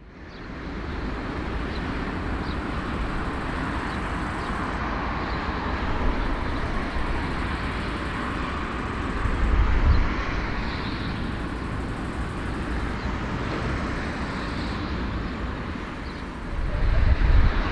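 Steady aircraft engine noise with a heavy low rumble, swelling briefly about ten seconds in and again near the end.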